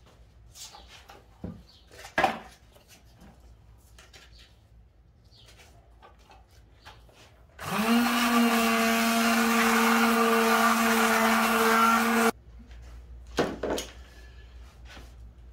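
Electric detail (mouse) sander sanding an end-grain wenge cutting board with 400-grit paper. It starts about halfway through, runs with a steady hum for about four and a half seconds, then stops suddenly. Before it come a few light clicks and a sharp knock of the sandpaper and sander being handled.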